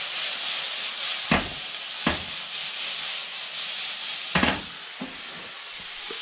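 Chopped bacon sizzling in a frying pan, a steady hiss, with three short knocks as the pan is shaken on the gas hob.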